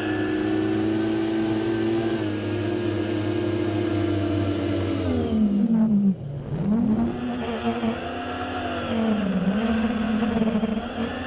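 FPV quadcopter's brushless motors (iFlight XING 2208 1700KV on a 4S battery) whining at a steady throttle. About halfway through the pitch drops sharply as the throttle is cut, then climbs back, and it dips once more near the end.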